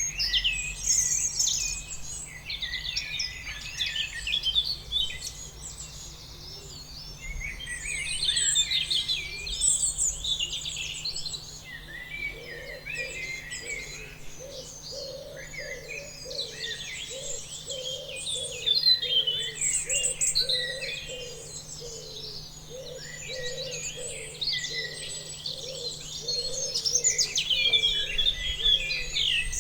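Several birds chirping and singing, many short overlapping calls and trills. From about twelve seconds in, a lower sound repeats underneath at roughly one and a half times a second.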